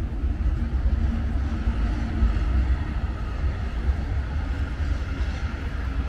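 Outdoor beach ambience: a steady low rumble with a faint haze of distant voices from the people around.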